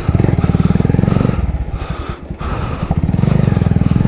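Loud motorcycle engine and exhaust running under throttle, a rapid pulsing beat; it eases off briefly about two seconds in, then picks up again.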